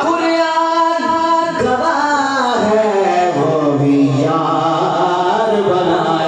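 A man singing Urdu devotional verse in long, drawn-out melodic phrases: a note held for about a second and a half at the start, then slow bends up and down in pitch.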